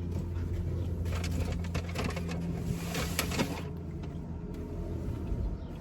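Plastic takeout food containers and packaging handled and opened: crinkling rustles and small clicks, thickest in the first half. A steady low hum runs underneath, the sound of the car's interior.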